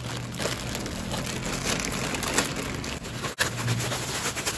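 Plastic parcel packaging crinkling and rustling, a dense run of fine crackles.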